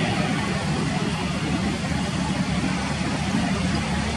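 Jet engines of an Airbus A320-family airliner running steadily as the aircraft rolls along the runway: an even rushing noise over a low hum, with no rise in thrust.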